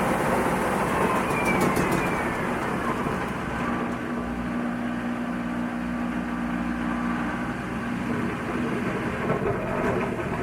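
Washing machine running: a steady mechanical whir, with a motor hum that holds steady for a few seconds in the middle.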